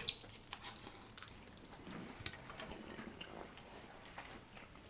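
Faint, scattered wet clicks and smacks of someone biting into and chewing a chicken wing coated in hot sauce.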